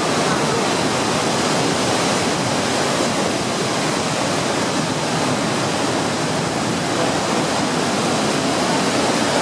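Iguazu Falls pouring over a horseshoe-shaped drop: a steady, loud rushing roar of falling water that does not change.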